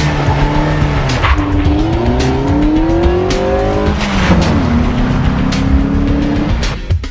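Car engine accelerating through the gears: the pitch climbs, drops at a gear change about four seconds in, then climbs again. Background music with a beat plays underneath.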